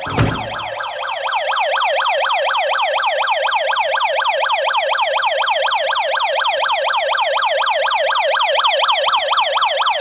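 Wireless GSM burglar alarm system's siren sounding in alarm, a loud electronic wail of rapidly repeating falling sweeps, about four or five a second, that cuts off suddenly near the end. A single knock of handling comes shortly after the start.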